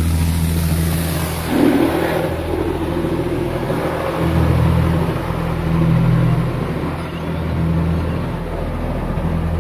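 Automatic car wash heard from inside the car: a loud low hum of the wash machinery that swells and fades every couple of seconds, over water spraying on the windshield and body.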